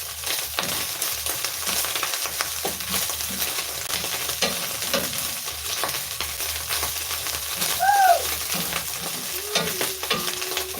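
Omena (small Lake Victoria sardines) sizzling as they fry in a pan to a crunchy golden brown, stirred with short scraping clicks of the utensil against the pan. A short tone that rises and falls sounds about eight seconds in.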